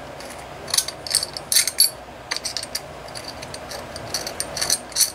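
Small metal Allen key clicking and tapping against the metal muffler and exhaust screws of an Enya 60XF model glow engine as the screws are worked loose: about a dozen short, sharp metallic clicks at uneven intervals.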